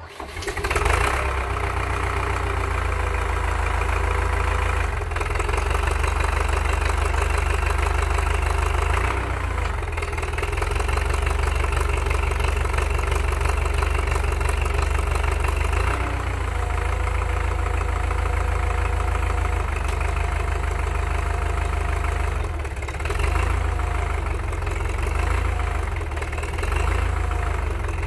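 Belarus MTZ-82 tractor's four-cylinder diesel running just after a cold start at about −25 °C, catching and swelling in the first second, then running steadily. Its note shifts a few times as the front loader is worked on cold hydraulic oil.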